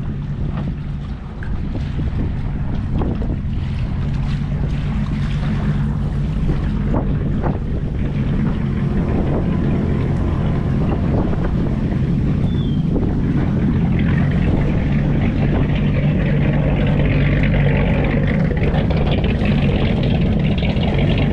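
A motor running steadily with a low, even hum, with a few short knocks in the first several seconds.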